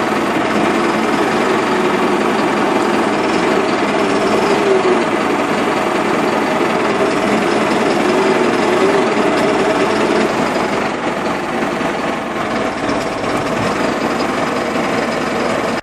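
Valtra N163V tractor engine running steadily, its pitch wavering slowly up and down every second or two.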